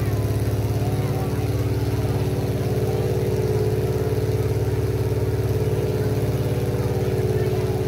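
Demolition derby truck engines idling in a steady, loud drone.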